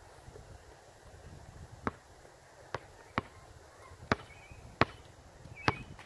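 A basketball bouncing on an outdoor hard court: six sharp bounces starting about two seconds in, unevenly spaced as it is dribbled.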